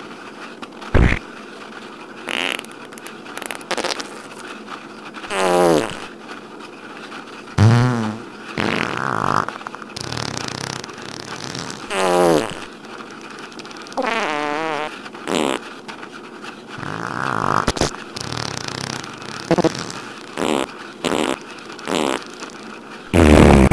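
A string of fart sound effects, one every second or two, some long with a pitch that slides down or up, others short.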